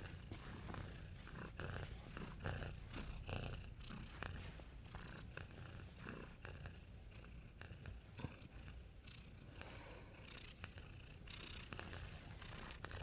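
Domestic cat purring steadily, a low, even rumble, with scattered faint clicks and rustles over it.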